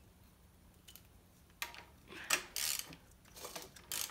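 Ratchet wrench clicking in several short strokes, starting about a second and a half in, as a bare engine's crankshaft is turned over by hand with the spark plugs out so the pistons move up and down.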